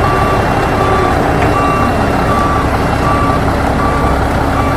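Heavy truck engine running with a reversing alarm beeping steadily, about once every three-quarters of a second.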